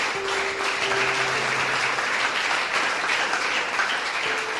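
Audience applauding in praise, a steady spread of many hands clapping, with a few faint held musical notes underneath.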